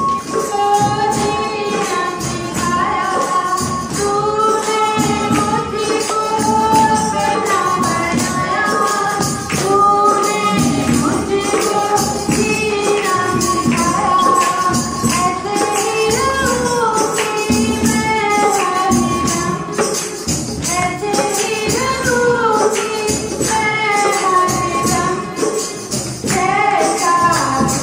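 Congregation singing a Hindi Christian devotional song led by a woman on a microphone, with tambourine and hand clapping keeping a steady beat.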